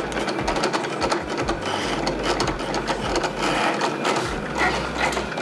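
Cricut Explore Air 2 cutting machine making a cut: its motors whir with rapid clicking as the blade carriage moves over the cutting mat.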